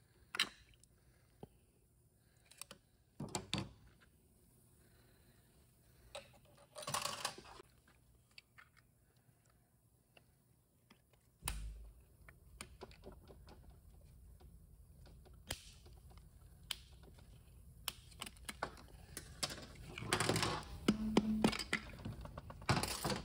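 Scattered clicks, taps and short clatters of metal parts and tools being handled as accumulator pistons and springs are worked out of their bores in a 4R70W transmission's aluminium case. A faint low hum comes in about halfway.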